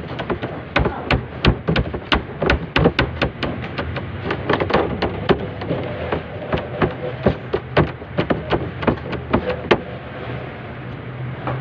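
Hands rolling and patting a strip of ensaymada dough on a stainless steel worktop: quick, irregular taps and slaps of palms and dough against the metal, several a second, over a steady low hum.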